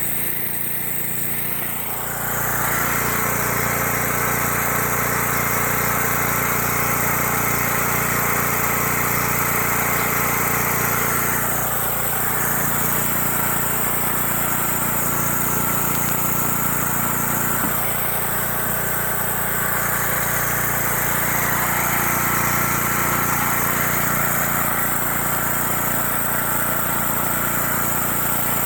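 Pressure washer engine running steadily, with the hiss of the spray gun cutting in about two seconds in, stopping near the middle, and starting again a few seconds later as the downstreamed chemical mix is sprayed.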